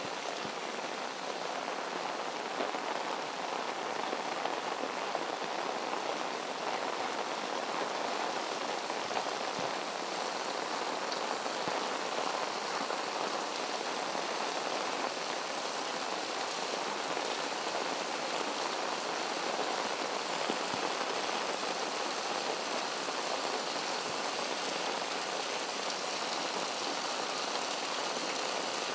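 Heavy tropical rain falling steadily, with water pouring off roofs and splashing onto the ground.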